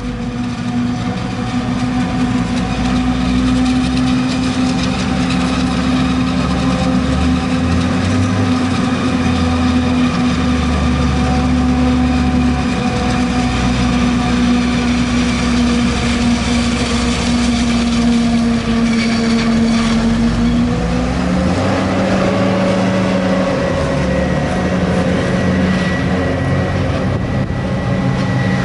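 Forage harvester chopping maize, its engine running steadily under load together with the tractors hauling silage wagons; the engine note changes about three-quarters of the way through.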